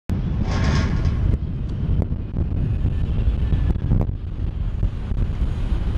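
Wind buffeting the microphone: a heavy, uneven low rumble with a few light clicks. A brief higher-pitched sound comes about half a second in.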